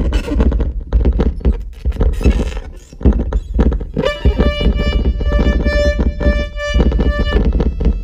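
Loud experimental electronic noise music from a modular synthesizer rig: a choppy, stuttering low rumble full of clicks. About halfway through, a steady pitched tone with overtones joins it and cuts off about three seconds later.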